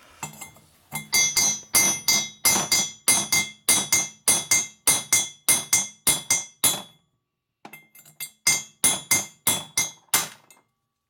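Ball-peen hammer striking a steel punch to drive a stuck valve guide out of a heated aluminum Harley-Davidson panhead cylinder head. The blows are sharp and ringing, about three a second, with a short pause before a second run. The guide is held fast by aluminum galled onto it, even with the head hot.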